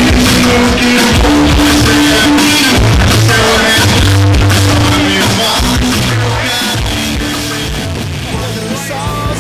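A rock band playing live, with electric guitar, bass, drums and singing; the level drops somewhat near the end.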